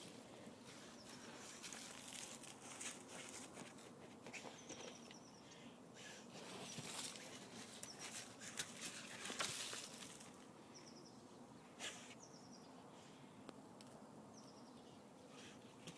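A puppy digging in soil, its paws scraping the dirt in faint, irregular scratches.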